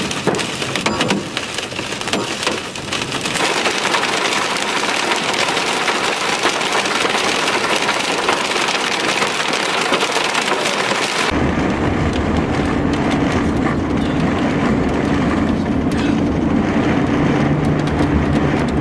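Wind-driven hail and rain pelting a moving vehicle, a dense, continuous clatter of small sharp impacts that grows heavier a few seconds in. About eleven seconds in it cuts abruptly to a steady low vehicle drone with a held hum.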